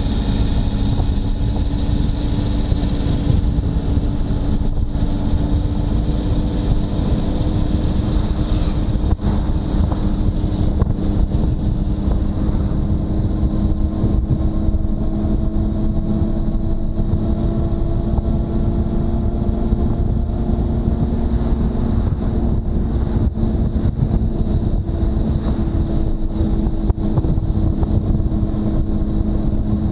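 Motorcycle engine running at a steady cruise under heavy wind rumble, its note creeping slightly higher as the bike gains a little speed.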